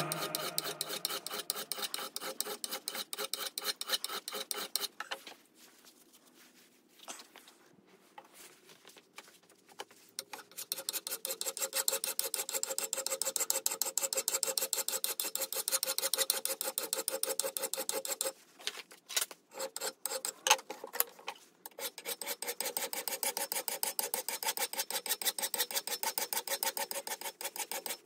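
Hand file rasping across the steel edge of a WarWood mattock blade in quick repeated strokes, dressing the edge. The strokes stop for about five seconds, starting about five seconds in, and break off briefly again later.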